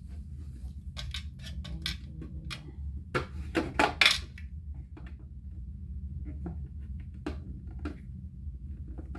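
Small hard items being handled and set down, giving scattered clicks and light knocks that are busiest and loudest about three to four seconds in. A steady low hum runs underneath.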